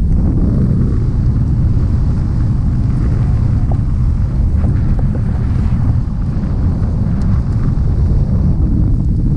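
Steady, loud wind buffeting the camera's microphone as a tandem paraglider flies through the air, a dense low rumble.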